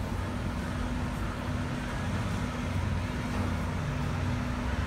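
A steady low mechanical drone with a constant hum, like engines or machinery running, unchanging throughout.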